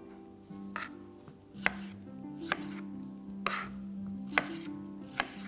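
A knife slicing fresh strawberries on a cutting board, with sharp taps of the blade striking the board about once a second, six or seven in all.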